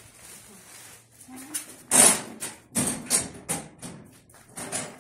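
Plastic rubbish bags rustling as they are picked up and carried, with several short crackles and knocks, the loudest about two seconds in.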